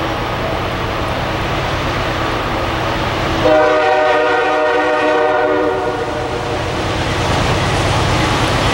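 Air horn of a CSX diesel locomotive leading a double-stack container train: one long blast starting about three and a half seconds in and lasting about two and a half seconds. Under it runs the steady low rumble of the approaching train, growing a little louder near the end.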